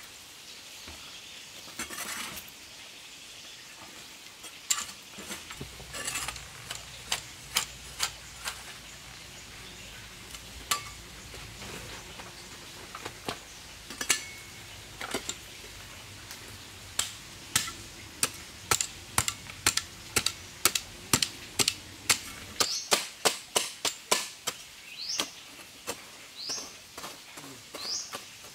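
Metal digging tool striking and scraping into hard, dry, crumbly earth: a string of sharp chops, irregular at first, then quickening to about two a second in the second half.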